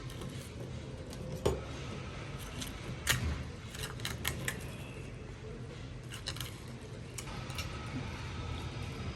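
Kitchen utensils being handled: a few sharp clicks and knocks, one about a second and a half in and a cluster from about three to four and a half seconds, over a low steady hum.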